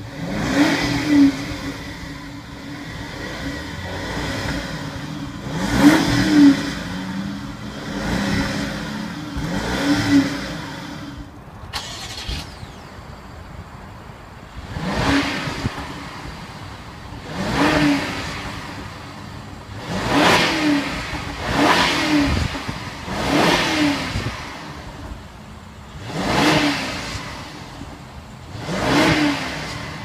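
BMW 7 Series exhausts revved while parked. First a 2014 740Li's turbocharged inline-six idles and is blipped a few times. After a cut, a 2015 750Li's twin-turbo V8 is revved again and again, about one rev every two to three seconds.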